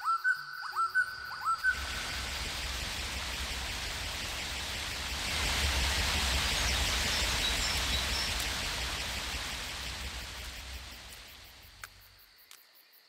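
A waterfall's steady rush of falling water with a low rumble, growing louder in the middle and fading away near the end. At the start a run of short rising chirps, about two a second, stops after a second and a half as the water sound comes in.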